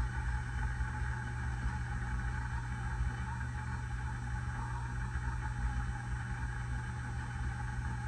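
Hunter low-profile ceiling fan running steadily at speed: a steady hum over an uneven low rumble.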